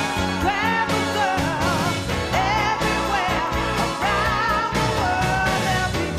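Background pop song with a singer's voice over a band and a steady drum beat.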